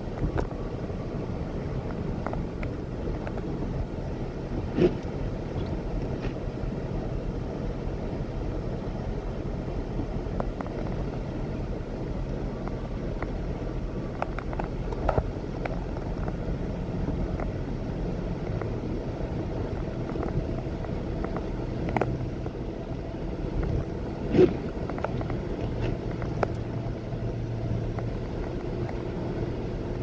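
Car cabin noise while driving on a wet, snowy highway: a steady hum of engine and tyres, with a few brief sharp knocks, the loudest near the end.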